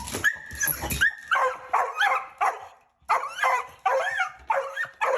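A dog yipping and whining in a quick series of short, high calls, about two a second, with a brief pause about three seconds in.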